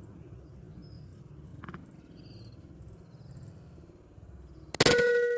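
A PCP air rifle fires once near the end: a sharp crack followed by a metallic ringing ping that fades over a couple of seconds. Before it there is a low steady outdoor background with faint chirps.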